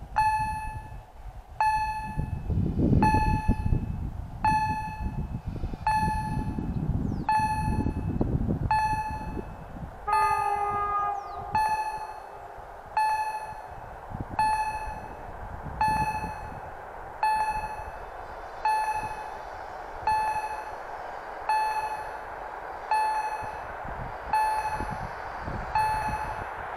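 A level-crossing warning bell dings about once every one and a half seconds while a passenger train hauled by an EU160 electric locomotive rumbles past. The rumble dies away about ten seconds in, when a short horn blast sounds.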